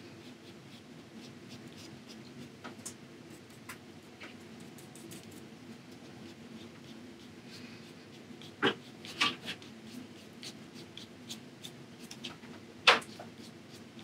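Paintbrush working acrylic paint onto gessoed watercolor paper: faint scratchy strokes and small clicks over a low steady room hum, with a few sharper clicks, the loudest near the end.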